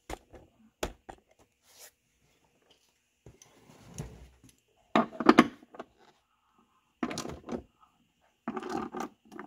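Tool clicking and clunking on a Lincoln Town Car's door striker bolt as it is loosened and repositioned to adjust the door's closing. A few sharp clicks come first, then bursts of metallic clunks and rattles, the loudest about five seconds in.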